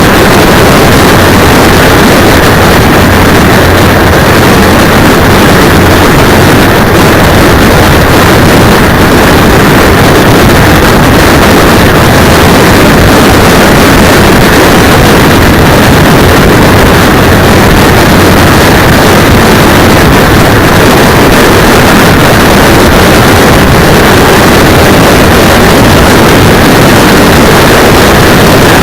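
Steady, very loud wind and riding noise from a moving motorcycle, picked up by a cheap 808 keychain camera's microphone mounted on the handlebar brake cylinder. It is distorted and clipped throughout into a constant roar, with no distinct engine note standing out.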